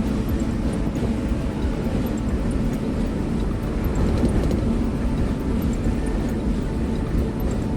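Steady low rumble of the Suzuki Carry kei truck's engine running, even and unchanging throughout.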